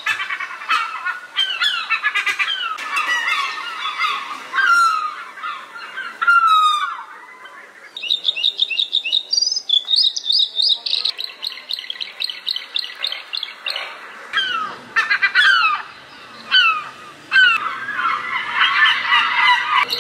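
A chorus of bird calls: overlapping chirps, short downward-sliding whistles and fast trills, one call after another.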